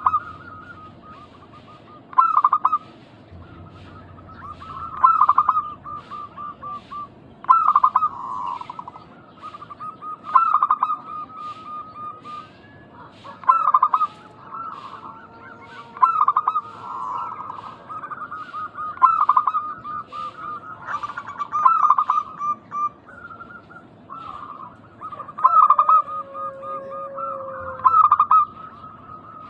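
Zebra doves (perkutut) cooing: a loud note followed by a quick run of softer, evenly spaced notes, repeated about every two to three seconds, with calls overlapping at times.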